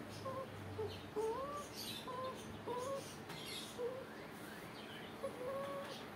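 A puppy whimpering while its freshly cropped ear is handled: a string of about seven short, high whines, some rising in pitch, with a longer one near the end.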